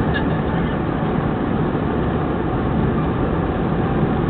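Steady roar of an airliner's jet engines and rushing air, heard from inside the passenger cabin during the climb after takeoff.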